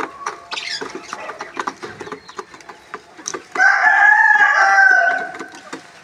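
A rooster crows once, about three and a half seconds in: one long, loud call lasting about a second and a half. Before and around it, chickens cluck and peck grain from a plastic feeder, making many short sharp taps.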